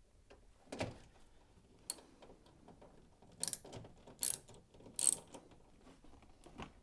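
Ratchet socket wrench clicking as it undoes the 7 mm screws holding down a tumble dryer's top panel, with several louder sharp clicks and knocks along the way.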